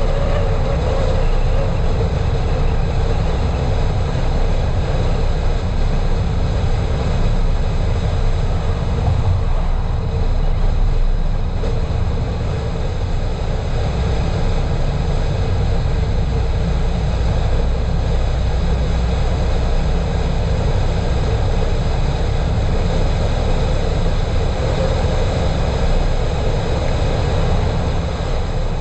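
Steady driving noise of a car cruising along a road: a low tyre and road rumble with engine hum and a faint steady tone, unchanging throughout.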